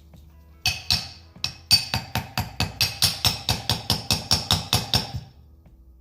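Hammer tapping an aluminum sleeve into a starter motor housing, a run of about twenty sharp ringing metal taps that settle into about five a second before stopping.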